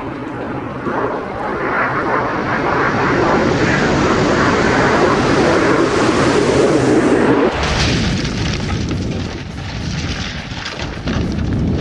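Cartoon sound effects of a superhero flying into an asteroid. A rushing, aircraft-like whoosh swells for about seven seconds, then changes suddenly to a deeper rumble with crackling as the impact hits.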